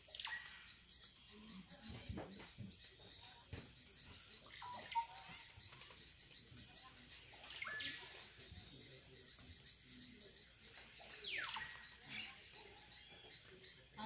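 Rainforest insects, cricket-like, keep up a steady high-pitched drone. Over it, a bird gives a falling whistle three times: near the start, about eight seconds in, and about eleven seconds in.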